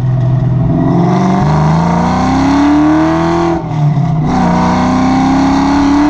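Car engine accelerating hard under load, its pitch climbing steadily. About three and a half seconds in it drops briefly for a gear change, then climbs again.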